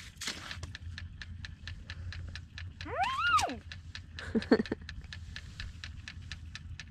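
A dog whining: one rising-and-falling whine about three seconds in, followed by a couple of short, lower whimpers, over a steady run of light ticks.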